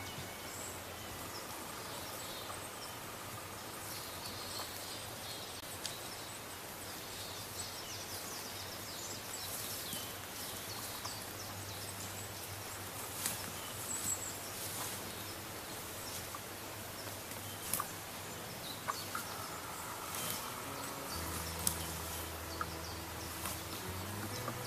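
Steady outdoor hiss with faint bird and insect calls, broken by a few sharp taps. Faint sustained music notes are present near the start and again near the end.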